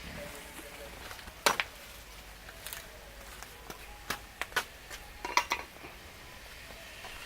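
Several sharp clinks and knocks of kitchenware, utensils against dishes or a pot. The loudest comes about one and a half seconds in, and a quick cluster of ringing clinks follows a little after five seconds.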